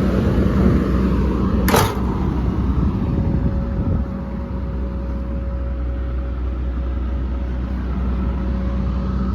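Komatsu PC200LC-8 excavator's six-cylinder diesel engine idling steadily, with a single sharp knock about two seconds in; after it the engine sound is a little quieter.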